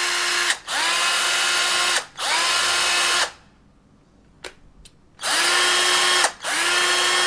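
Small 12 V cordless drill/driver running with no load in short trigger pulls of just over a second each. Each run is a steady motor whine that rises briefly in pitch as it spins up. There are three runs back to back, a pause of about two seconds, then two more.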